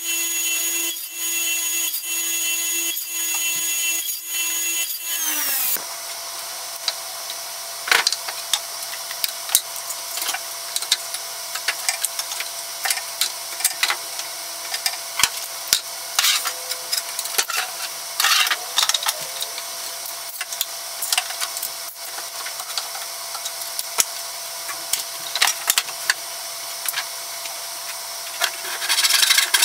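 Radial arm saw motor running with a steady whine, then winding down about six seconds in. After that come scattered clicks and clatter of pipe clamps and a ratchet strap being handled over a low steady hum, with a louder scraping noise near the end.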